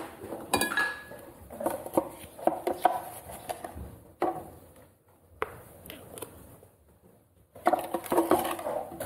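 Irregular clattering and knocking of hard objects being handled, in dense bursts with a couple of single sharp knocks in between and another burst of clatter near the end.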